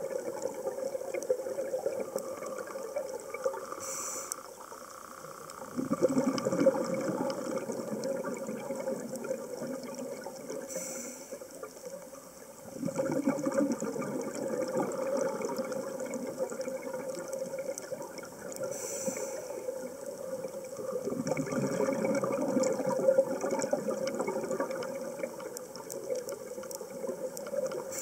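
A scuba diver breathing through a regulator underwater: a short hiss with each inhalation, then a longer rush of exhaled bubbles, repeating about every seven to eight seconds, over a steady low hum.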